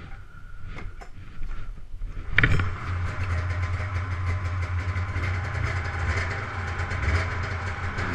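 Old Polaris 450cc two-stroke snowmobile engine catching about two seconds in, after a few short knocks, then idling steadily.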